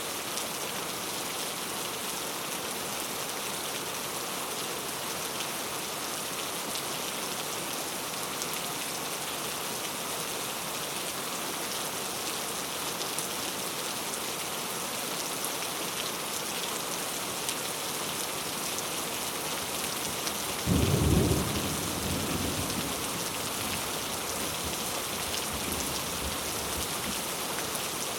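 Heavy rain pouring steadily, a dense even hiss. About three-quarters of the way through, a clap of thunder booms for about a second and rumbles away over the next couple of seconds.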